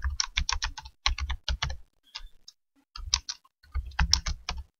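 Typing on a computer keyboard: quick runs of keystrokes, with a short pause a little over two seconds in.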